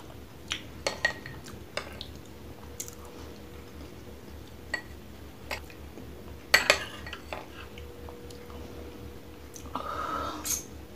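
Metal spoon clinking and scraping against a small glass bowl in scattered sharp taps, the loudest a quick double clink a little past the middle, with a brief scrape near the end as the spoon is set down in the bowl.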